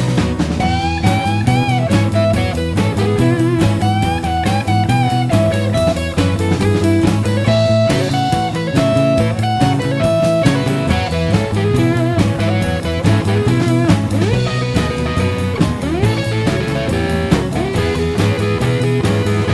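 Instrumental break of a rock-style children's song: electric guitar lead with bending notes over bass and a steady drum beat.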